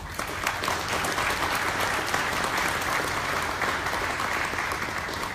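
Audience applauding with steady clapping that dies down near the end.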